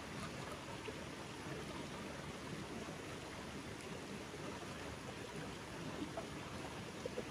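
Steady rush of a stream running over rocks, with a few faint clicks near the end.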